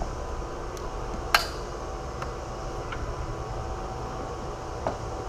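Hand-tool work on battery-tray hardware: one sharp metallic clank about a second and a half in, and a few light ticks, over a steady fan-like hum.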